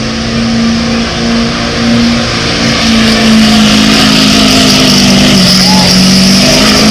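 A pulling vehicle's engine running at full throttle while dragging the sled down the track, a loud steady drone that grows louder about three seconds in and sags slightly in pitch near the end.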